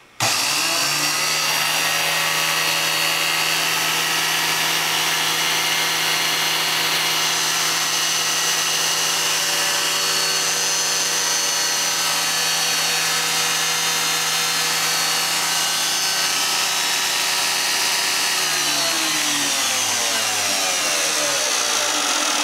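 Homemade horizontal belt grinder running free: a 3/4 HP DC motor drives a 2 x 48 inch abrasive belt around its spools, giving a steady hum with a hiss from the belt. It starts right at the beginning, and its pitch falls over the last few seconds as it slows.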